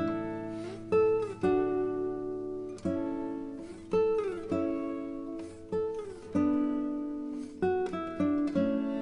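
Background music: a guitar picks a slow melody, each note struck and left to ring, with a few sliding notes.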